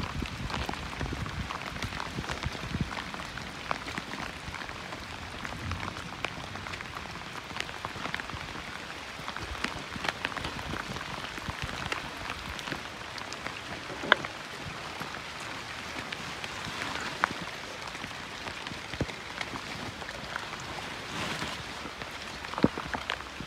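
Steady rain falling, with many scattered close drop ticks and a sharper tap about fourteen seconds in.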